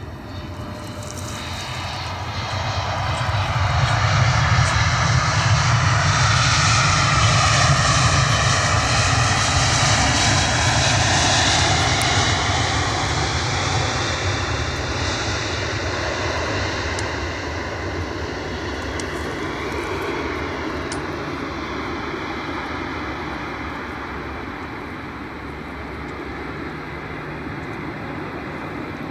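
Airbus A320 airliner's jet engines as it touches down and rolls out. A broad rush swells over the first few seconds and stays loud for several seconds, with a whine that slides in pitch, then slowly fades as the jet rolls away.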